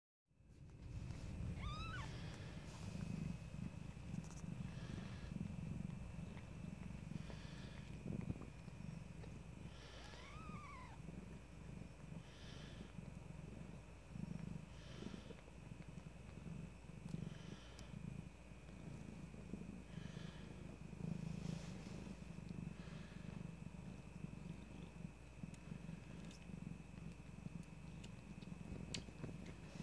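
Mother cat purring steadily as her newborn kittens nurse, with two short, high kitten squeaks, about two seconds in and again about ten seconds in.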